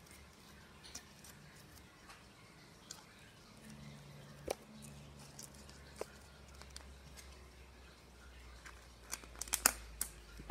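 Green slime being stretched and squeezed by hand, giving scattered small clicks and pops. Near the end comes a quick run of louder clicks as the slime is pressed into a clear plastic tub.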